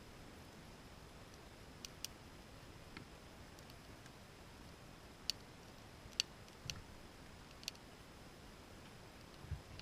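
Campfire crackling faintly: a handful of sharp, irregular pops and snaps from the burning wood over a steady low hiss, with a dull thump near the end.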